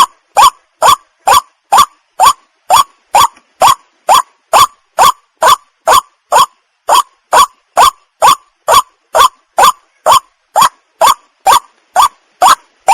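White-breasted waterhen calling: a steady run of short, loud, upward-sweeping notes, about two a second, with no break.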